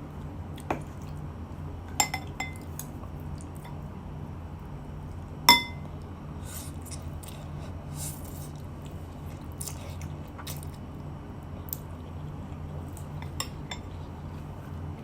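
Spoon and cutlery clinking against dishes and a glass a few times, with one loud ringing clink about five seconds in and softer taps scattered through, over a steady low hum.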